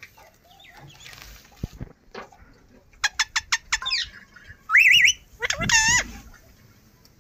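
Alexandrine parakeet calling: a quick series of about five short, sharp calls, then two louder, longer wavering screeches.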